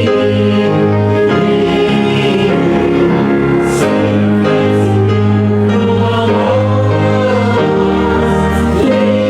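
A hymn sung by a group of voices with instrumental accompaniment, one steady verse with held notes.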